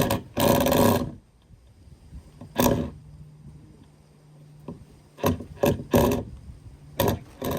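Power drill run in short bursts, about eight pulls of the trigger with the longest near the start, as it tries to turn a stubborn fastener.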